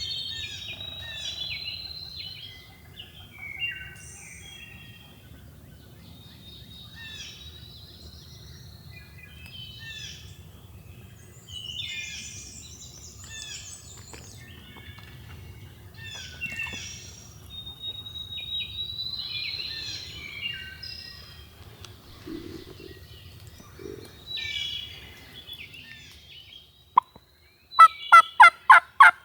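Songbirds singing in spring woods over a steady low rumble. Near the end a loud series of evenly spaced turkey yelps begins, about three a second, much louder than the birdsong.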